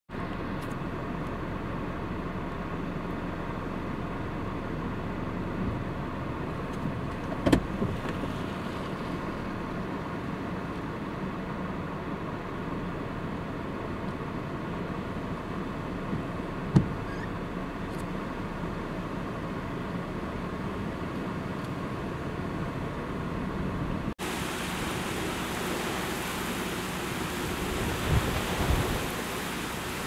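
A steady low rumble with two short knocks, then an abrupt change about three-quarters of the way through to the hiss of heavy wind-driven rain from Hurricane Michael, with gusts buffeting the microphone near the end.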